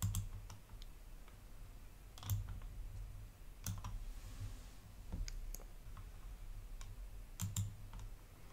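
A handful of sharp computer mouse clicks, one at a time and once as a quick pair, over a faint low hum.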